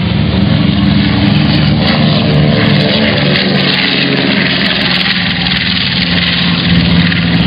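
A formation of Aermacchi MB-339 jet trainers flying past, a loud, steady jet roar with a few tones sinking slightly in pitch midway through.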